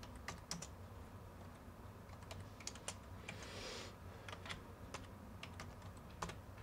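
Computer keyboard being typed on: faint, irregular runs of short key clicks.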